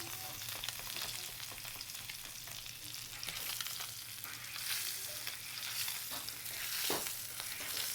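Thick tomahawk ribeye sizzling on a hot Blackstone flat-top griddle: a steady frying hiss full of fine crackles and spits, with one sharper pop near the end.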